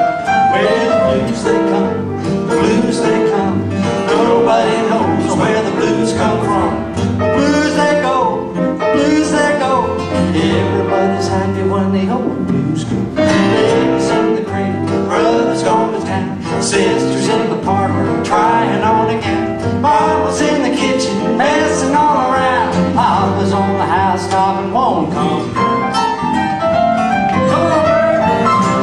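Two acoustic guitars playing a folk song live, a continuous plucked and strummed passage.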